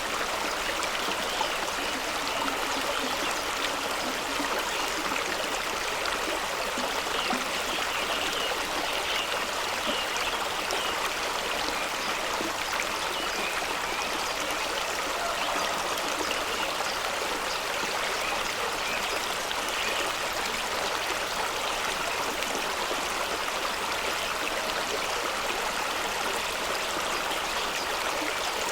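Fast-running stream rushing and splashing over rocks, a steady, even rush of water.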